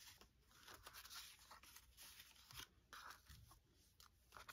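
Faint, irregular snips and rustles of scissors cutting paper.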